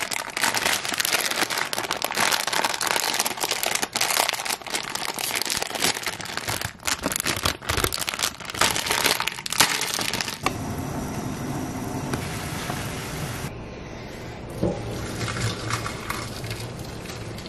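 Plastic instant-noodle packet of pancit canton crinkling and tearing as it is handled and opened, a dense crackle of many small snaps. After about ten seconds the crinkling stops and a quieter steady background sound is left.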